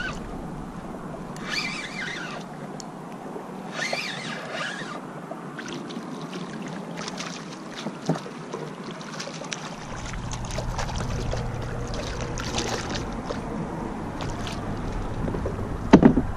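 Water splashing and sloshing around a fishing kayak while a small spadefish is reeled in on a bait rod, with short splashes, a run of small clicks and rattles, and a sharp knock near the end.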